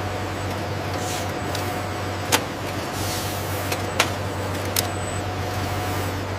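Steady machinery hum with a low drone and a hiss, broken by a few sharp clicks, about two and a half, four and five seconds in.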